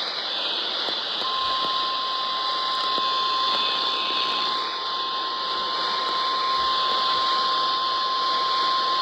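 NOAA Weather Radio warning alarm tone: one steady, single-pitch tone of about 1050 Hz that starts about a second in, over a constant hiss of radio static. It is the alert that opens a broadcast tornado warning.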